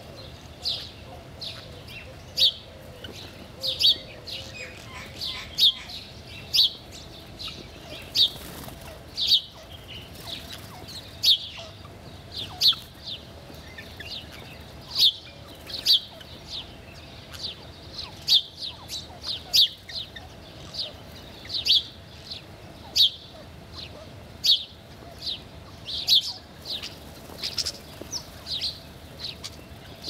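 House sparrows chirping: short, sharp single chirps, one or two a second.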